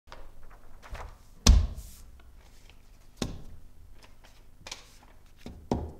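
A paper map being unfolded and laid flat on a cloth-covered table: a few sharp thuds and knocks, the loudest about one and a half seconds in, with a brief rustle of paper after it.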